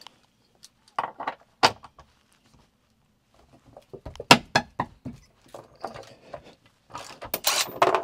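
Scattered metal clinks and knocks from a socket ratchet and loose seat bolts being handled, with a denser clatter near the end.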